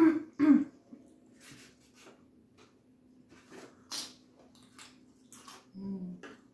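Close-up eating sounds: scattered wet mouth clicks and smacks of chewing, with a sharp wet smack about four seconds in as fingers are licked clean. A low hum runs steadily underneath.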